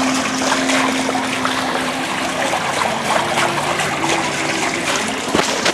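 Steady running and splashing water.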